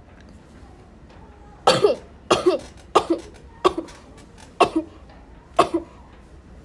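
A woman sneezing six times in quick succession, starting nearly two seconds in. Each sneeze is a short, sharp burst of breath with a brief falling voiced sound, the sneezes coming roughly a second or less apart.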